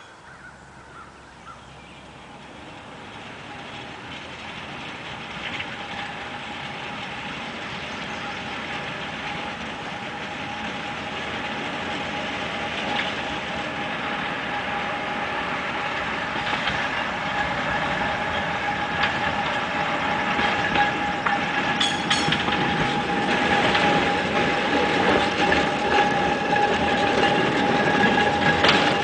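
1926 Whitcomb 4-ton storage battery mine locomotive running along narrow-gauge track, growing steadily louder as it approaches. A steady whine from its electric drive sits over the rumble of steel wheels on rail, with a few sharp clicks.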